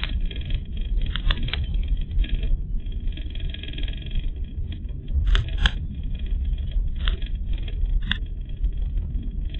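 Car running along a rough country road, heard from inside the cabin: a steady low road and engine rumble with several sharp clicks and knocks, the loudest pair a little after five seconds in.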